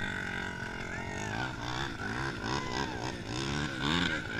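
ATV engine running, then from about a second and a half in revving up and down in quick repeated blips, about two a second.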